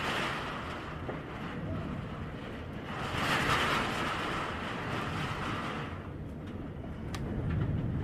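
Typhoon wind gusting against the house, heard through a window: a rushing noise over a low rumble that swells about three seconds in and eases off around six seconds, then builds again near the end.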